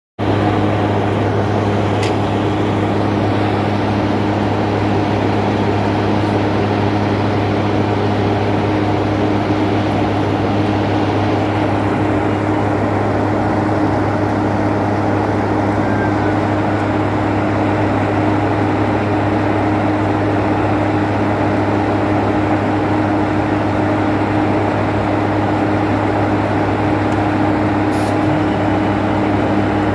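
British Rail Class 45 diesel-electric locomotive 45041's Sulzer twin-bank diesel engine idling steadily while standing, a loud, even drone heard close beside the engine-room grille.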